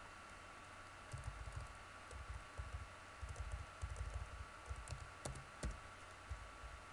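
Typing on a computer keyboard: faint, irregular keystrokes in short runs, starting about a second in.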